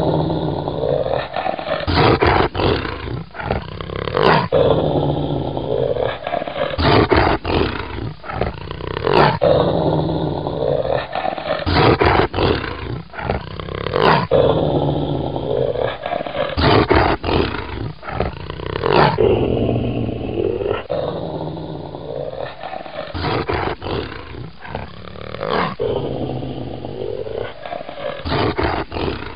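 Werewolf growl sound effect: deep, rough growls and roars that swell and fade in waves every two to three seconds, the growling soundtrack of an electric animatronic werewolf Halloween prop.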